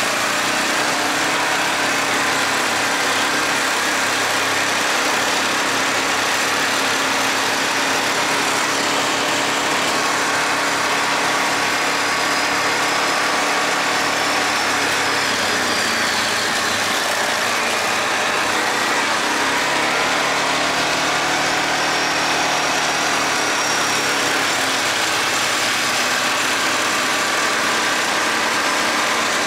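Yamaha Grizzly 450 ATV's single-cylinder four-stroke engine running steadily, its pitch shifting slightly now and then.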